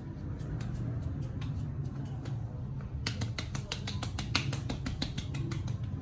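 Rapid sharp clicks and taps from a barber's percussive head massage, starting about halfway through at several a second, over a steady low hum.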